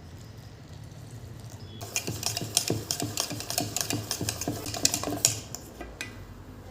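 Small hard objects clattering and clicking as they are handled, a quick irregular run of knocks that starts about two seconds in and dies away near the end.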